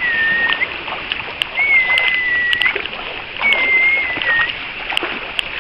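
Feet wading and splashing through shallow floodwater, with three long, high whines over the splashing.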